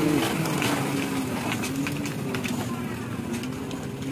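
Mitsubishi Fuso Canter light truck's diesel engine running at low speed as it crawls past through mud, a steady hum that fades about a second in, with scattered sharp clicks.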